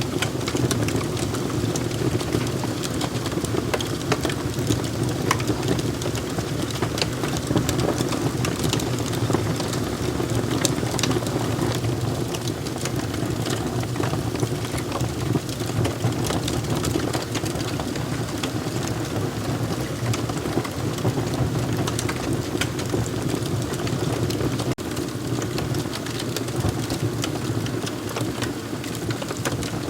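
Wood fire crackling: a steady low rumble of burning with many sharp pops and crackles scattered throughout, and a momentary break about 25 seconds in.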